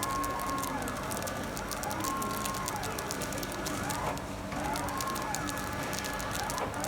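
Automatic pillow-type packaging machine running: a motor whine rises, holds and falls in a cycle repeating every second and a half or so, over a steady hum and rapid clicking.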